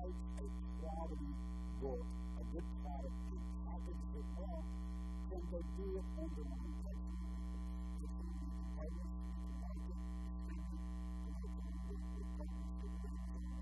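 A steady electrical hum made of several constant tones dominates, with a man's voice faint underneath it.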